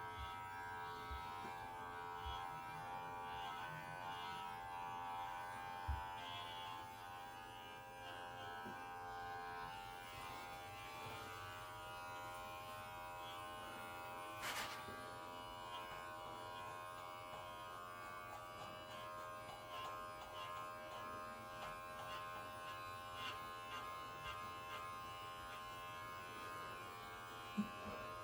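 Electric pet hair clipper running steadily with a buzzing hum while trimming a cat's fur, with one sharp click about halfway through.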